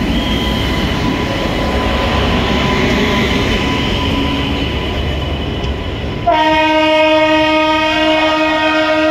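Diesel locomotive's horn sounding one long steady blast, starting about six seconds in and held for about three seconds, the signal of a passenger train pulling out. Before it, the steady rumble of the train moving off.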